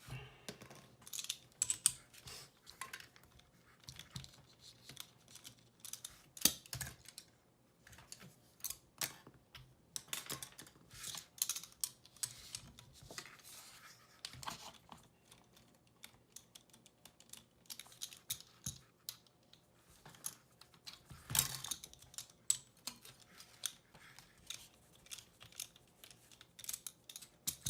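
Irregular small clicks, taps and light knocks from hands working on an FPV racing drone, taking off the propellers and handling small parts.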